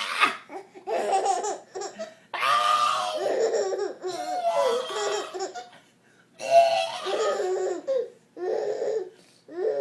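Young child laughing and squealing in about six high-pitched bursts with short breaks between them.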